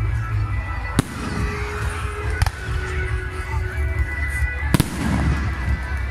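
Aerial fireworks shells bursting: three sharp bangs, about one second in, about two and a half seconds in, and a louder one near five seconds, over a steady low rumble.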